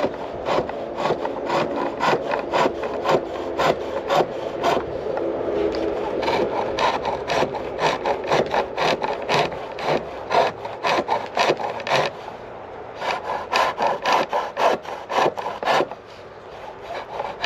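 Homemade chisel cutting chestnut on a treadle-driven pole lathe: rhythmic scraping strokes, about two a second, with a couple of brief pauses. The chisel is blunt.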